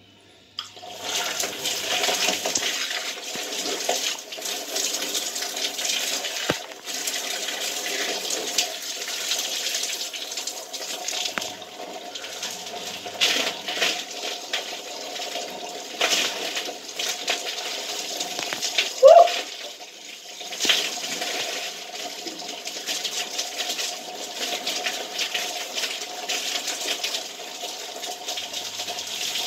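Shower water starts about a second in and then runs steadily, splashing over lathered hair and skin as the shampoo is rinsed. A brief rising squeak cuts through about two-thirds of the way in.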